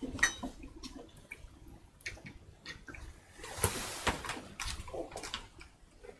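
Handling noises on a carving bench: scattered light knocks and clicks as the woodblock and work light are shifted, with a brief sliding scrape a little over three and a half seconds in.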